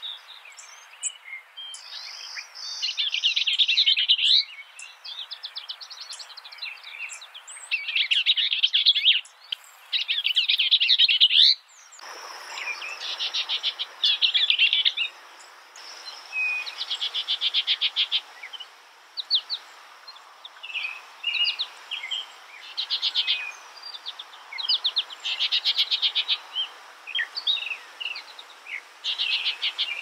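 A songbird singing in phrases of fast repeated notes and trills, with short pauses between phrases. The background hiss changes abruptly about twelve seconds in.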